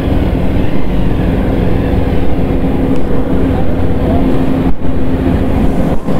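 Loud steady engine rumble with a steady drone through it, from a motorcycle stopped right beside heavy earth-moving machinery.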